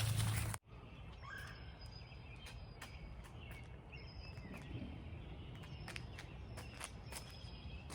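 Several wild songbirds calling in a wooded yard: repeated thin high whistles, a few lower chirps and scattered short sharp chips, all faint. Before that, a loud low rumble of noise cuts off abruptly about half a second in.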